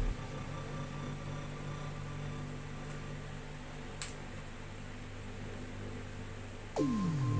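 Steady low hum with faint hiss, broken by one sharp click about four seconds in. Near the end a falling electronic sweep brings background music back in.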